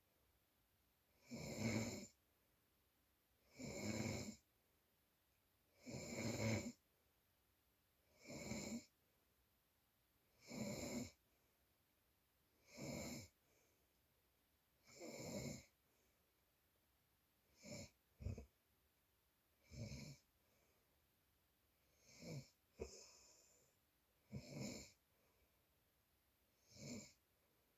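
Snoring in slow, regular breaths, about one snore every two seconds. A few shorter, doubled snores come after the middle.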